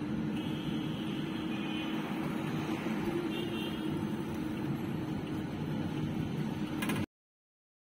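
Inside the cabin of a Toyota Aqua being towed in neutral with its engine off: steady road and tyre noise with a low hum, at walking-to-cycling speed. It cuts off abruptly about seven seconds in.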